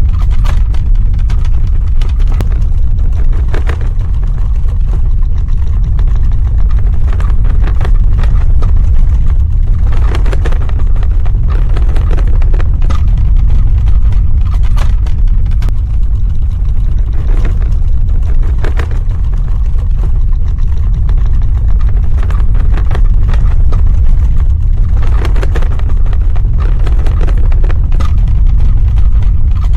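Earthquake sound effect: a loud, continuous deep rumble with scattered crackling over it.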